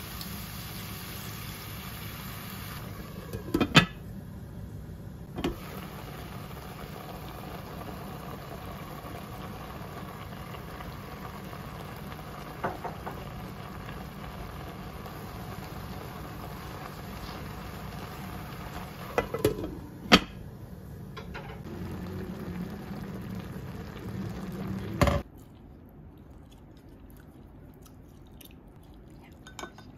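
Beef, onion and carrot cooking in a pot on the stove: a steady sizzling and simmering hiss, with a few sharp knocks scattered through it. Near the end the hiss stops abruptly and it goes much quieter.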